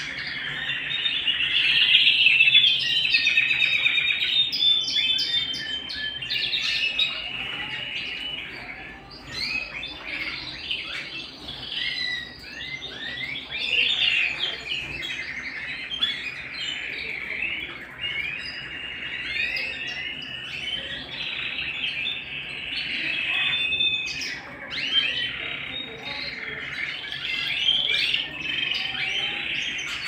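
Domestic canary singing a long, unbroken song of fast trills and chirps, loudest in the first few seconds.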